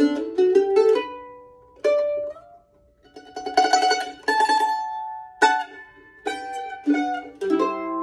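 Handbuilt mandolin with a red spruce top and curly maple back and sides, played with a pick: quick runs of single notes, a sparse stretch with a few ringing notes and a short gap about two seconds in, then a fast tremolo passage and more picked notes. The strings have been under tension for only about an hour, so the instrument is not yet broken in.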